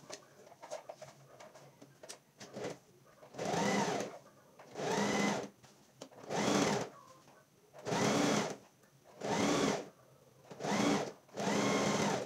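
Domestic electric sewing machine stitching in about seven short runs of roughly a second each, its motor speeding up and slowing down on every run. Before the first run come a few seconds of light clicks from fabric handling.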